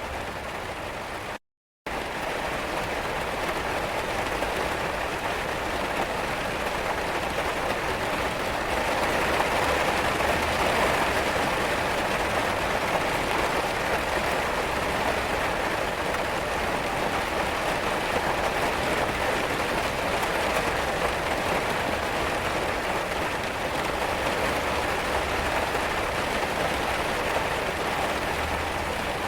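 Steady rain falling, an even dense hiss and patter of drops. It cuts out completely for a split second about a second and a half in.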